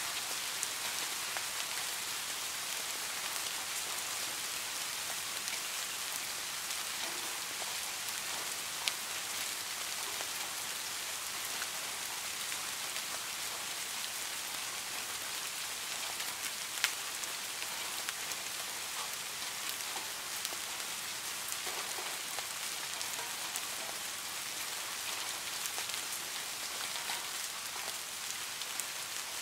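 Steady rain falling: an even hiss with scattered sharper drop ticks, two of them standing out about nine and seventeen seconds in.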